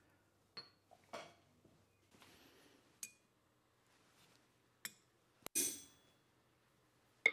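Hardened steel center punches being handled and set down, giving a few separate light metal clinks, some with a short high ring; the loudest comes about five and a half seconds in.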